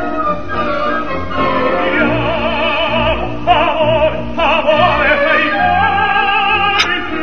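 Operatic singing by a high voice with a wide, wavering vibrato, over orchestral accompaniment.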